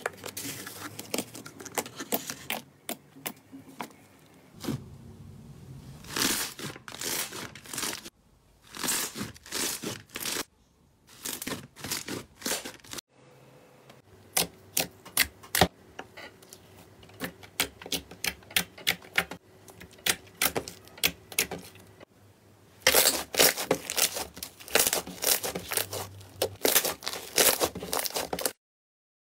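Slime being pressed, poked and squished by hand, giving runs of sharp crackling pops and clicks as air pockets in it burst. It comes in several short segments that cut off and change abruptly.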